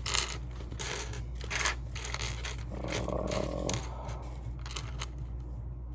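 A plastic parts bag of Lego pieces crinkling and rustling in irregular bursts as someone rummages through it for a piece.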